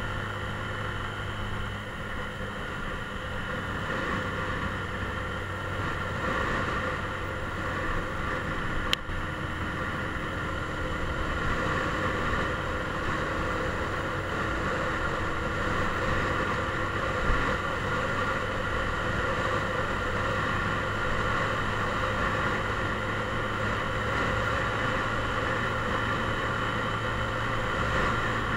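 Mondial Drift 125 motorcycle engine running steadily while riding at an even cruising pace, with a constant drone of engine tones over road and wind noise. Two brief sharp clicks come through, about nine and seventeen seconds in.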